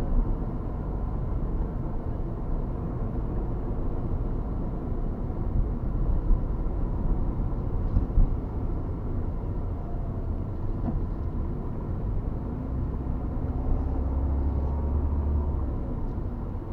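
Steady low rumble of a moving vehicle, with a faint engine hum coming through in the later part.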